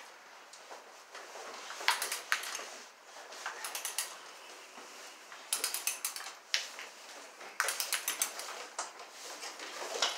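Several short clusters of light metallic clicks and rattles, a few seconds apart, as electrical cable is handled and pulled overhead.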